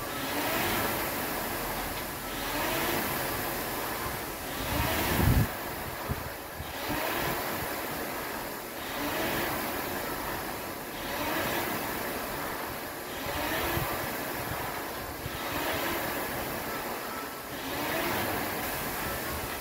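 Air rowing machine's fan flywheel whooshing with each stroke, the sound swelling and falling about once every two seconds as the flywheel is driven on each pull. A single loud thump about five seconds in.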